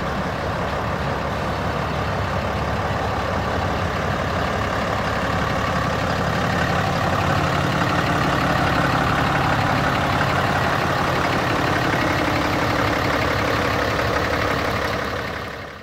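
A Dodge Ram 2500's 6.7L Cummins inline-six turbo diesel engine running steadily at idle. The sound fades out near the end.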